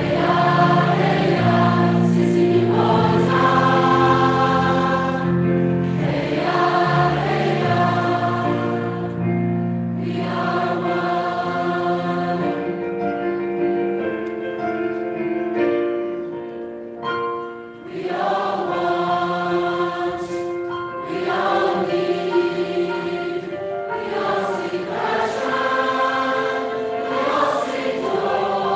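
Large mixed school choir singing in several parts with piano accompaniment, briefly dropping in loudness a little past halfway before coming back in.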